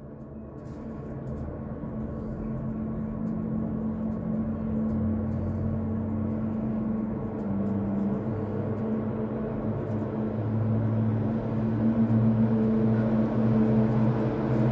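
Gondola cable car running with a steady mechanical hum and a few low tones, heard from inside the cabin, growing gradually louder as the cabin nears a station.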